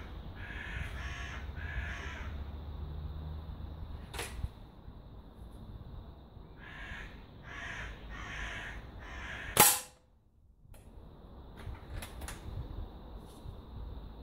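A single sharp crack about two-thirds of the way in: a shot from a Hämmerli Black Force 800 break-barrel air rifle in 4.5 mm calibre, its pellet striking a paper target in a metal pellet trap. Before it come two short runs of repeated bird calls and a faint click.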